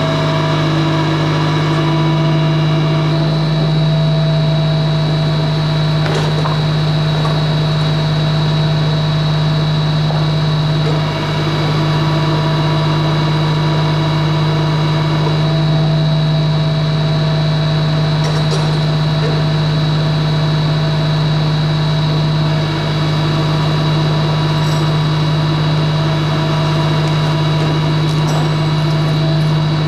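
Japa 355 firewood processor's power unit running steadily at a constant pitch, with a couple of brief, slight dips in level.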